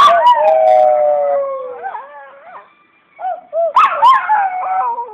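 Shih Tzu howling: a long, slowly falling howl, then short wavering yips, a brief pause, and another howl starting about three seconds in, with two voices overlapping.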